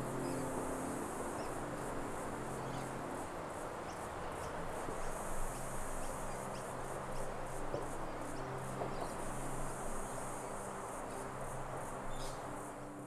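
Bush ambience: a high-pitched insect chorus pulsing over a steady hiss, with a faint low drone beneath.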